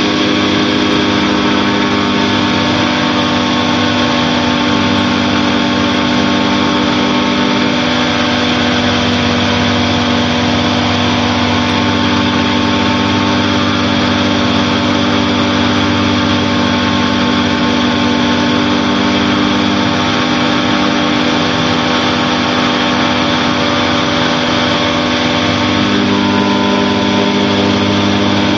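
Challenger II light-sport aircraft's engine and propeller running steadily in flight, heard from inside the cockpit, with small shifts in pitch now and then as the power changes slightly.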